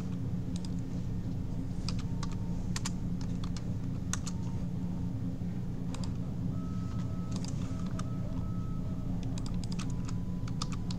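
Irregular clicking of a computer keyboard and mouse as drawing commands are entered, over a steady low hum.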